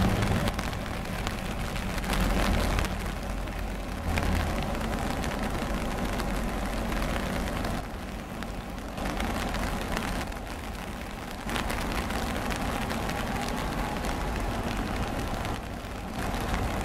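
Double-stack intermodal cars of a CSX freight train rolling past on the rails, a steady rumble, with rain falling.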